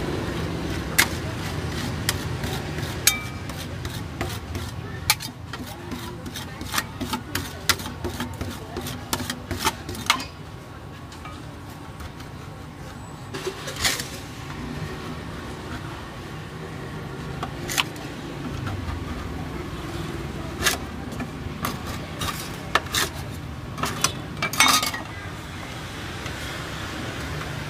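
Metal spatulas tapping and scraping on a stainless-steel cold plate as rolled ice cream is spread, chopped and scraped up into rolls: rapid clicks for the first ten seconds, then occasional scrapes and knocks. A steady low hum runs underneath.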